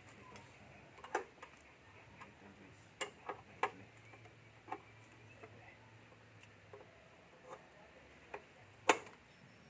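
Scattered light clicks and taps at irregular intervals over a faint low hum, with one sharper click near the end.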